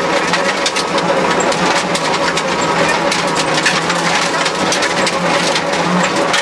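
Rally car engine running hard on a gravel stage, heard inside the cabin, with a dense crackle of gravel and stones hitting the underside and wheel arches.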